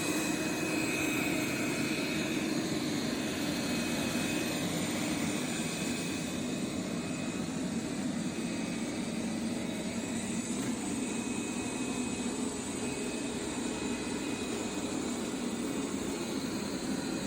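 A small electric motor and fan running steadily, with a faint high whine over a constant rushing hum.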